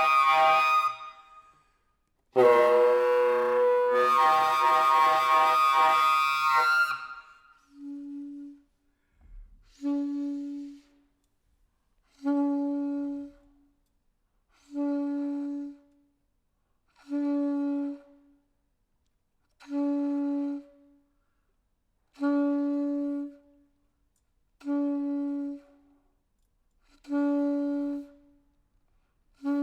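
Solo saxophone: a loud tone thick with overtones dies away about a second in, and another sounds for about four seconds. Then a single short low note is played again and again, about every two and a half seconds, with silence between.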